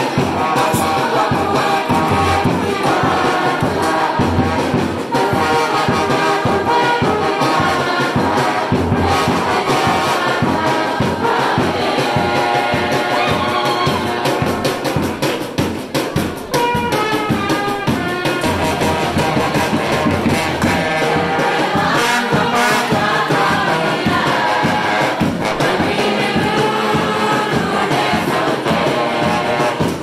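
A brass band of trombones and a trumpet plays a tune over a bass drum and snare drum that keep a steady beat.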